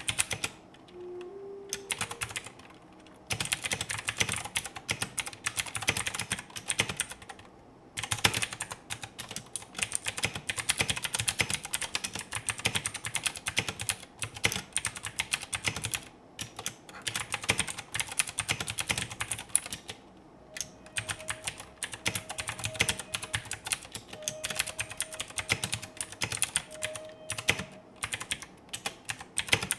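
Type test on an AKKO 3084 mechanical keyboard with clicky blue switches: fast runs of sharp key clicks, broken by short pauses.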